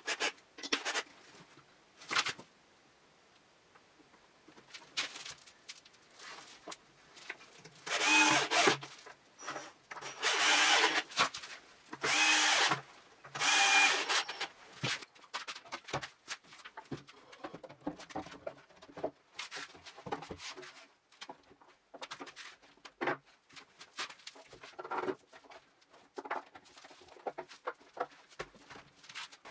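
Power drill running in several short bursts, about a second each, with clicks and knocks of workshop handling before and after.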